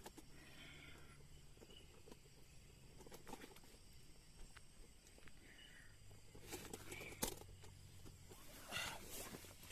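Faint night-time forest ambience with short, scattered animal calls and a few sharp clicks, the loudest about seven seconds in.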